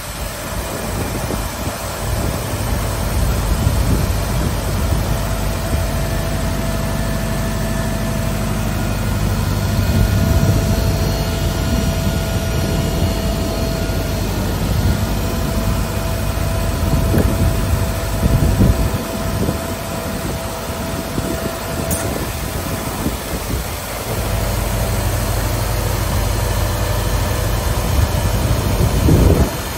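Weinig Hydromat 22 AL four-sided planer running, with a steady whine over a heavy low rumble. The rumble eases for a few seconds past the middle and then comes back.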